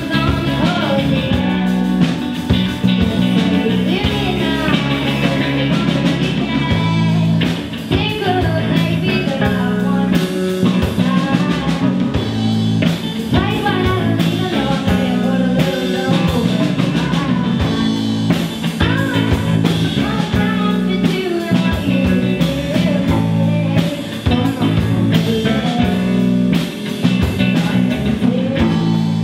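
Live indie rock band playing: a woman singing over two electric guitars, electric bass and a drum kit.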